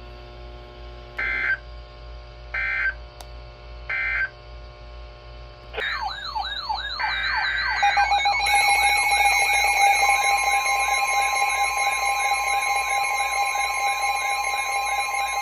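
Three short electronic Emergency Alert System data bursts, then from about six seconds in a warbling electronic alert alarm, joined near the middle by a steady tone held under the warble.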